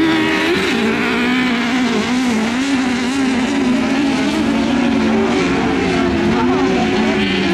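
Engine of an up-to-1600 cc autocross prototype buggy running hard on a muddy dirt track, its pitch rising and falling every second or so as the driver works the throttle and gears.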